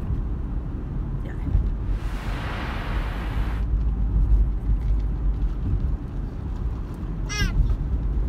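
Steady low road rumble inside a moving car. A soft hiss runs for about a second and a half, about two seconds in, and a short high squeal comes near the end.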